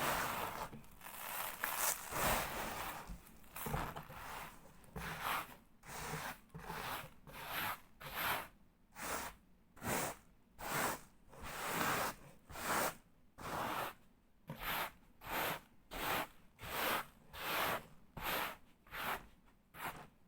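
Gritty sand crunching and crumbling on cardboard. It is irregular at first, then settles into a regular run of short crunches, about one and a half a second.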